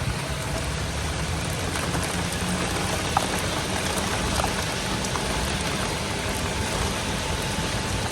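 Steady rain falling, over the low rumble of a moving golf cart.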